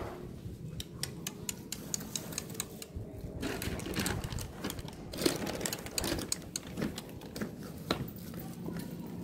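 A run of quick light clicks, then a plastic carrier bag crinkling as it is handled. Sandals slap on the tiled floor, with a sharp slap near the end.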